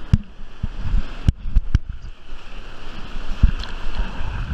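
Breaking whitewater rushing around a bodyboard-mounted action camera as the board rides a wave in, with wind noise on the microphone and several sharp slaps of water against the board and camera, a cluster of them a second or so in and another near the end.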